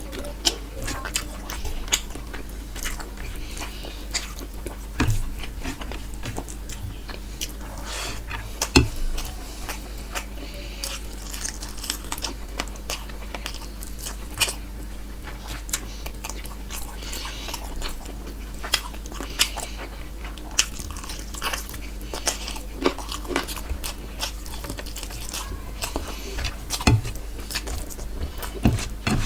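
Close-miked chewing and biting of chicken curry and rice: a continuous run of small mouth clicks and smacks, with one sharper click about nine seconds in. A faint steady low hum lies underneath.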